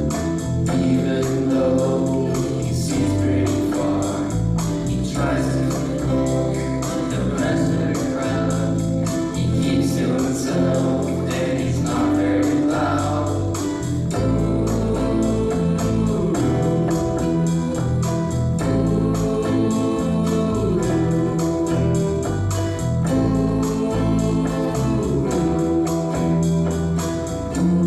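A song performed live by a group of teenage singers with band accompaniment, a steady beat under sustained keyboard chords and group vocals.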